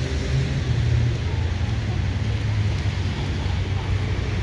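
Steady low engine rumble under a wash of outdoor city noise.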